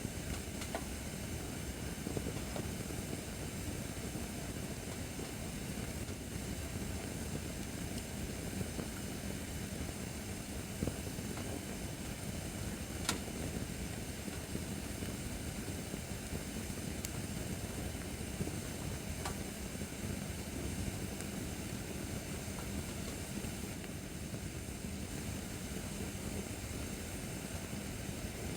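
Acacia firewood burning in a fire-pit stand: a steady hiss of flames with scattered crackles and a few sharp pops, the sharpest about 13 seconds in.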